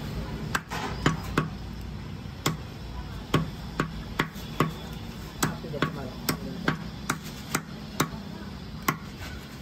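Heavy cleaver chopping through chicken legs and bone onto a wooden log chopping block: about sixteen sharp chops in an uneven rhythm, roughly two a second.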